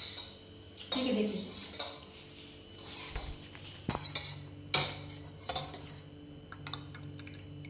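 Steel spoon stirring thin rabdi in a small steel bowl, scraping and clinking against the metal, with a few sharp clinks, the loudest about five seconds in.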